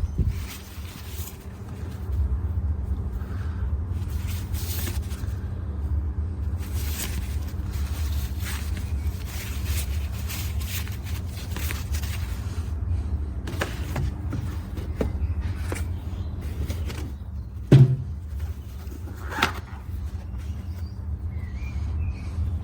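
Steady low mechanical hum with scattered light clicks, and one loud sharp knock about eighteen seconds in, followed by a smaller one.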